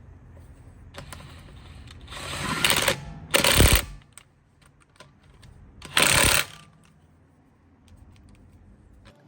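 Impact wrench driving in the wheel's lug nuts, rattling in short bursts: a longer one about two to four seconds in and a shorter one about six seconds in.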